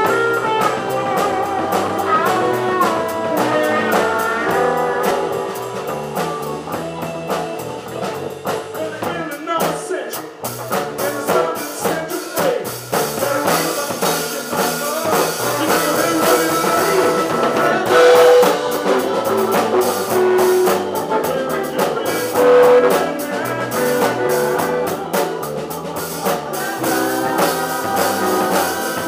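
Blues-rock band music: electric guitar and a drum kit keeping a steady beat, with singing.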